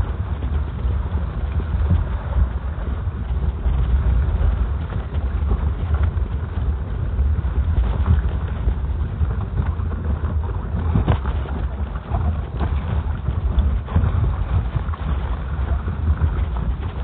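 Wind rumbling on the microphone while walking through slushy snow, with faint irregular footstep crunches.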